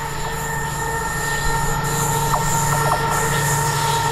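Freightliner Class 70 diesel locomotive approaching with a train of tank wagons: a low engine drone with several steady high whistling tones over it, growing slightly louder.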